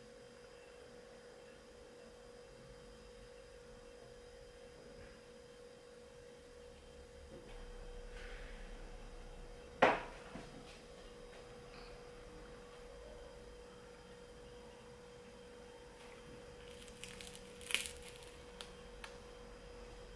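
A faint steady hum throughout, a single sharp knock about ten seconds in, and a short crackle near the end as a crusty homemade bread roll is torn open.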